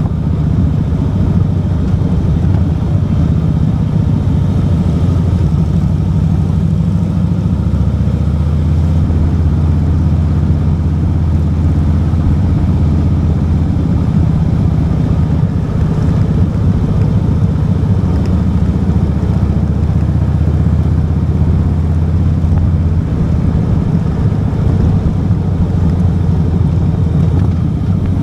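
Motorcycle engine running steadily at an even speed, a constant low drone with no change in pitch.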